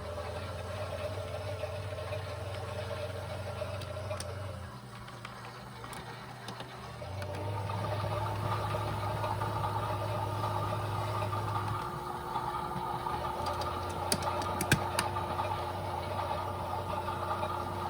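Toy washing machines running: small electric motors whirring with a low hum that cuts in and out, getting louder about seven seconds in, with a few sharp clicks near the end.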